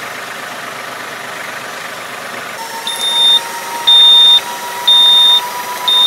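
Tractor engine running steadily; about two and a half seconds in, a warning beeper starts, sounding short beeps about once a second over a steady tone, while the paddy harrow's side wings fold up.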